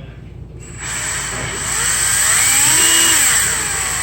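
Power drill starting up under a second in and drilling into a broken EGR bolt to re-center an off-center pilot hole, its high whine rising and falling in pitch as the speed changes.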